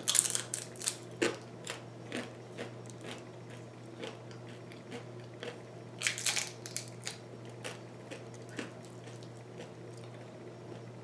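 A person biting into and chewing crunchy food close to the microphone: a burst of loud crisp crunches at the start and again about six seconds in, with quieter chewing crunches between.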